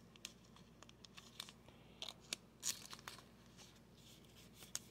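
Faint crinkling and rustling of a thin clear plastic card sleeve as a trading card is handled and turned over: a few short, crisp rustles, the loudest a little under three seconds in and another near the end.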